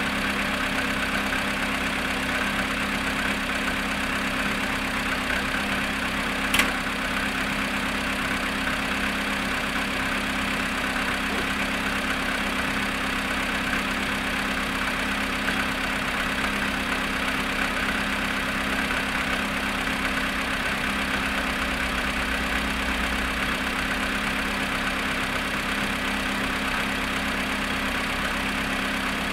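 Volkswagen Polo sedan engine idling steadily after a cold start at −7.5 °C, following 14 hours parked, with the engine knock the owner is recording. A single sharp click is heard about six and a half seconds in.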